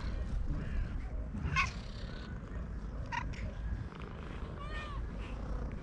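Domestic cats meowing: three short meows about a second and a half apart, over a steady low rumble.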